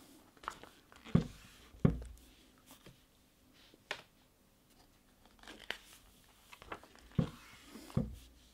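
Pages of a stapled paper booklet being turned and pressed flat: paper rustling, with two pairs of soft thumps, one near the start and one near the end, as the pages are smoothed down.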